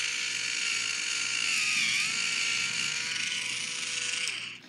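Handheld electric foot file (callus remover) running with a steady motor whine; its pitch dips briefly about two seconds in, and it switches off near the end.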